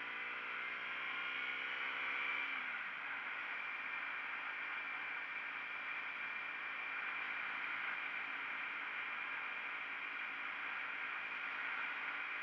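KTM 125 Duke single-cylinder engine running under way, its pitch falling about two and a half seconds in and then fading under a steady rushing hiss of riding wind.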